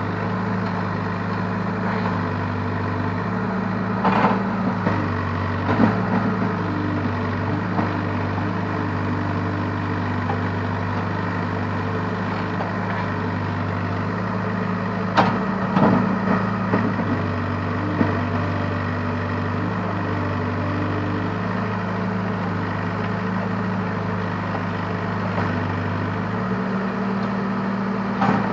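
Case backhoe loader's diesel engine running steadily, its tone shifting every few seconds as the machine works, with a few sharp knocks and scrapes of the digging work, the loudest about fifteen seconds in.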